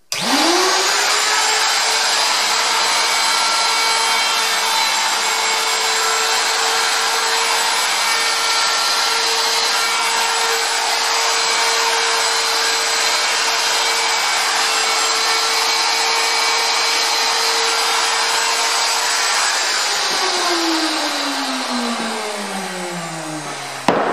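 Handheld wood router with a spiral flush-trim bit starting up and running at full speed as it trims the MDF cabinet's sides flush with the top. About twenty seconds in it is switched off and winds down, its pitch falling, and a knock near the end as the router is set down on the bench.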